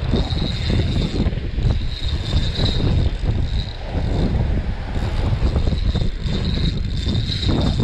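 Wind buffeting the microphone with a loud, uneven rumble, over the steady cranking of a spinning reel as a hooked fish is reeled in.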